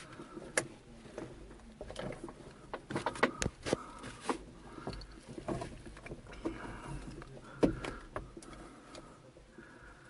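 Irregular knocks, clicks and rattles inside the cockpit of an Astir CS 77 glider standing on the ground before launch. They are densest between about two and four and a half seconds in, with one sharp knock near eight seconds.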